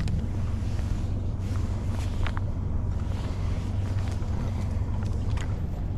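Boat's outboard motor running steadily, a constant low hum, with wind on the microphone and a few light clicks.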